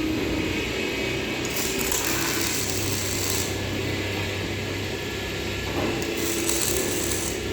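A power tool working metal in a fabrication workshop: a steady mechanical running noise, with two spells of harsher hissing, one starting about one and a half seconds in and another near the end.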